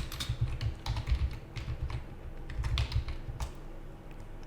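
Typing on a computer keyboard: a quick, irregular run of keystrokes that stops about three and a half seconds in.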